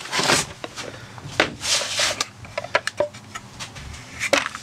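Hands rummaging in a cardboard box of tools and plastic cases, with irregular clatter, knocks and scraping as things are shifted about.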